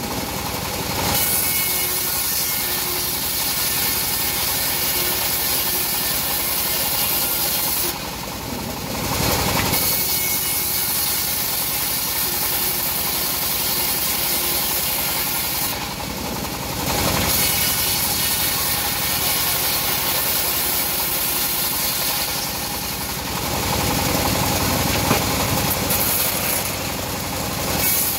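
Home-built bandsaw mill ripping teak planks: the blade hisses through the wood over the steady running of the mill's drive engine. The cutting hiss drops away briefly three times.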